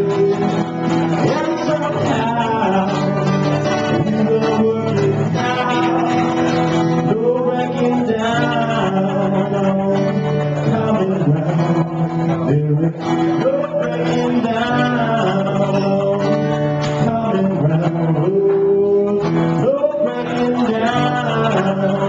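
A man singing a song while playing an acoustic guitar.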